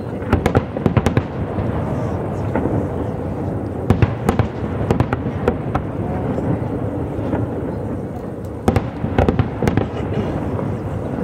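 Fireworks display: aerial shells bursting in quick clusters of sharp bangs, about half a second in, again around four seconds, and again near nine seconds, over a continuous low rumble.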